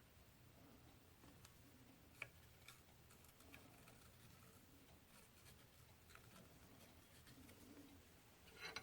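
Near silence: quiet shop room tone with a few faint small clicks, the sharpest about two seconds in.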